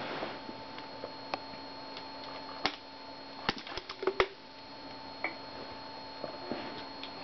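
Plastic water bottles handled while being drunk from: scattered sharp clicks and crackles, loudest in a quick cluster about four seconds in, over a steady faint electrical hum.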